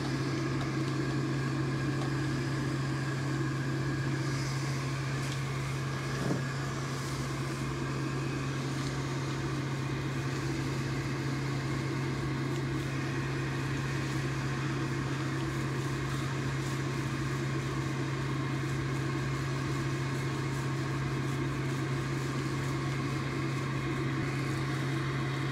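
A blower motor hums steadily at a low pitch, with a faint knock about six seconds in.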